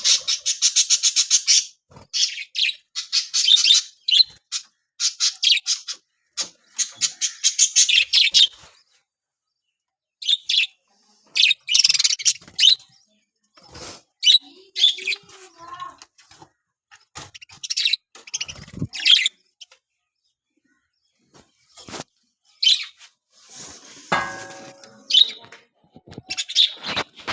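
Budgerigars chattering: rapid trains of high chirps, dense for the first eight seconds or so, then short bursts with quiet gaps between them.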